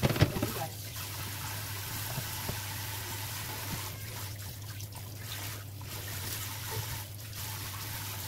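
Water running steadily from a kitchen tap into a stainless-steel sink, with a brief clatter right at the start.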